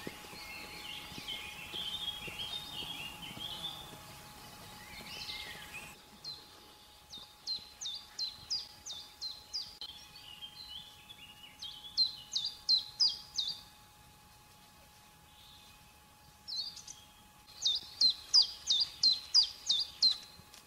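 Small songbirds singing. At first there is a tangle of high twittering. After about six seconds it gives way to three runs of quick, sharp, high repeated notes, about three to four a second. A faint steady hum runs underneath.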